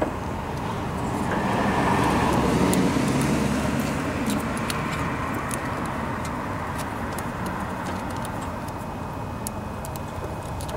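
A motor vehicle going by: a steady engine-and-road noise that swells to its loudest about two to three seconds in, then slowly eases off. Faint clicks of wires being handled come through under it.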